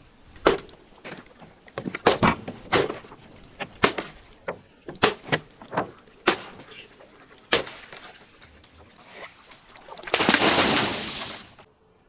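Glass being crushed: a string of sharp, irregular cracks and snaps, then a longer crunching grind of about a second and a half near the end.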